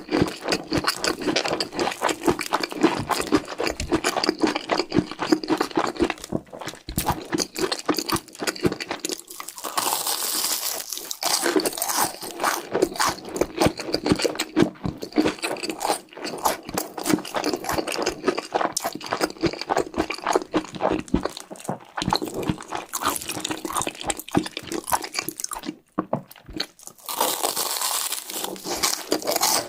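Close-miked chewing and crunching of cheese sticks: many quick, irregular crunches with a brief pause a little before the end.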